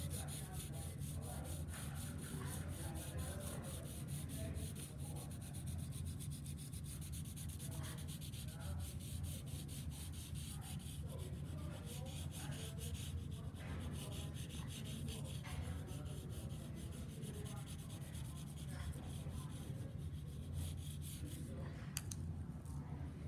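Graphite pencil shading on paper: rapid back-and-forth strokes rubbing over the sheet, fainter after about halfway. A steady low hum runs underneath.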